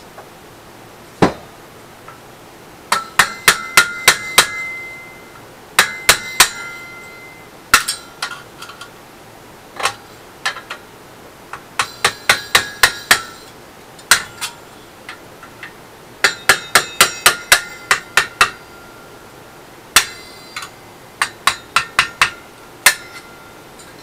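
Hammer driving a screwdriver against the metal top cap of a microwave oven magnetron clamped in a vise, knocking the cap loose. Sharp metallic strikes come singly and in quick runs of several blows, some with a short ringing after them.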